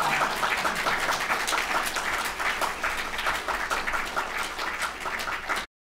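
Audience applauding, many hands clapping at a steady level; it cuts off suddenly near the end.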